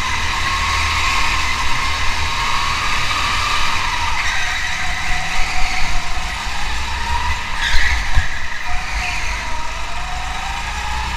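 A car running steadily, with a continuous low rumble and a whine, and a single sharp knock about eight seconds in.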